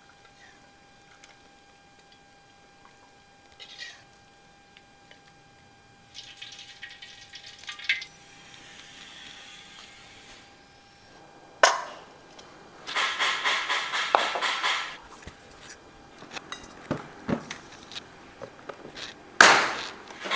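Kitchen handling noises: scattered knocks and clinks of dishes and utensils, with a quick rattling run for about two seconds in the middle. Near the end comes a loud sharp click as the latch button of a rice cooker lid is pressed.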